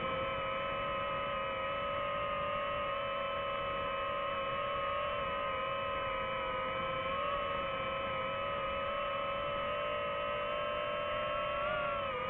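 Quadcopter drone's motors and propellers hovering, a steady whine of several held tones. The pitch wavers slightly and shifts briefly near the end as the motors change speed.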